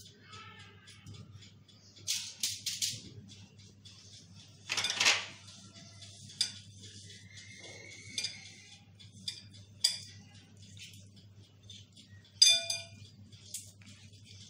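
Kitchen handling sounds: the foil-lined baking tray rustling and light clinks at a glass mixing bowl, with one bright ringing clink near the end, over a low steady hum.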